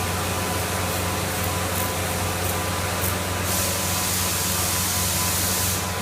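A 3+1-axis CNC router running, a steady low hum under a wash of hiss. A louder high hiss rises from about three and a half seconds in and stops shortly before the end.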